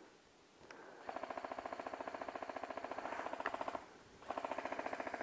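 Airsoft gun firing long full-auto bursts: a rapid, even rattle of about a dozen shots a second over a steady whine. It starts about a second in, breaks off briefly near four seconds, and starts again.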